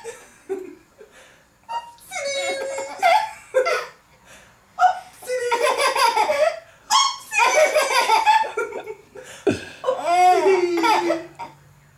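Baby laughing hard in three long runs of belly laughter, with short breaths between them.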